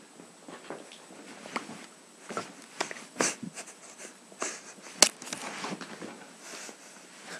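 Scattered knocks, clicks and rustles of a person moving about close to the microphone, with one sharp knock about five seconds in.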